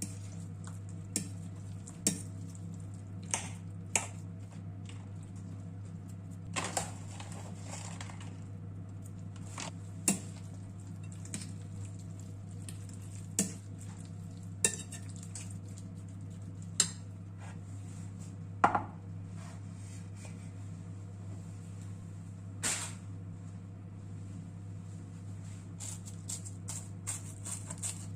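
Kitchen utensils clinking and knocking against bowls and dishes in separate single strikes every second or few, over a steady low hum.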